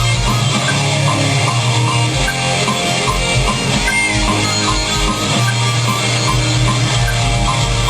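Heavy metal music played loud and steady: electric guitar over a drum kit with a regular beat.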